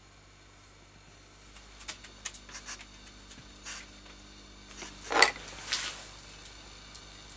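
Light metallic clicks as a small rusty lamp bracket is handled in a steel bench vise, then two short hisses of an aerosol bolt-and-nut releaser sprayed through its straw at the part. A single sharp metal clink, the loudest sound, falls just before the second hiss.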